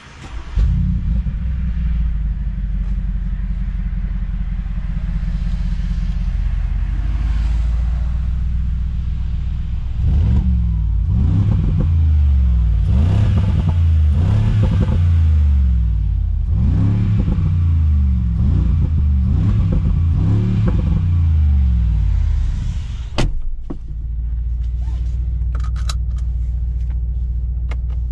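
Mercedes-AMG G63's 4.0-litre twin-turbo V8 starting up just after the start and settling into a steady idle. Its revs then rise and fall again and again for about twelve seconds. After a sharp click it drops back to a steady idle.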